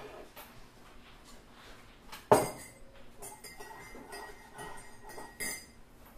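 Metal spoon clinking against a mug while stirring a drink: one sharp, ringing clink about two seconds in, lighter clinks after it, and another clear clink near the end.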